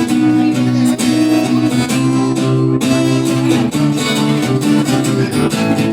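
Instrumental music led by guitar, strummed and plucked chords.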